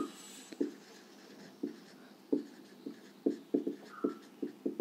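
Marker pen writing on a whiteboard: a run of about a dozen short, irregular strokes and taps as a word is written.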